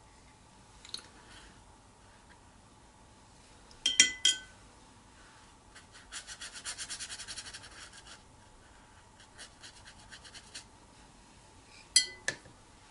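Watercolour brush scrubbing rapidly against paper for about two seconds in the middle, with a few shorter strokes after. Sharp ringing clinks of the brush on a hard dish come before and after the scrubbing.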